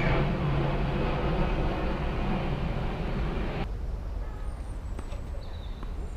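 Steady rumble of a passing vehicle with a low hum. It cuts off abruptly about two-thirds of the way in, leaving a faint low rumble.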